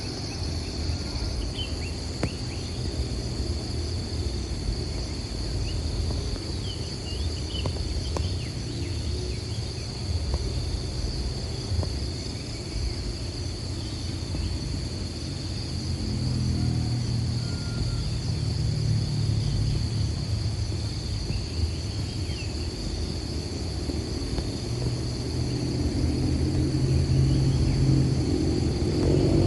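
Steady high-pitched drone of insects in the surrounding vegetation over a low rumble. About halfway through, a low motor-like hum comes in and grows louder toward the end.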